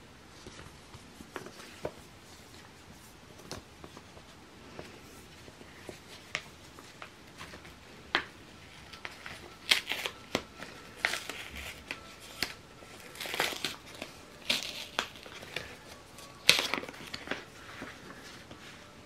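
Hands handling packaging: scattered crinkles and rustles of bubble wrap and stiff paper. The sharper, louder bursts come in the second half, as a card envelope is opened and cards are slid out of it.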